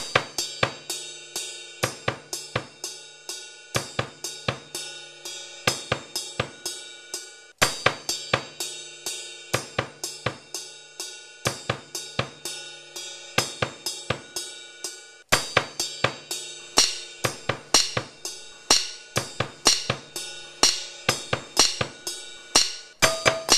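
Drum kit playing a steady beat on hi-hat, snare and bass drum, with cymbals ringing. The same pattern starts over abruptly twice, about every seven and a half seconds, as a repeating loop.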